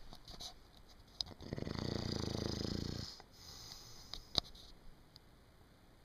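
Snoring: one long, low, buzzing snore beginning about a second and a half in, followed by a softer breathy hiss with a sharp click in it, then a quieter pause before the next breath.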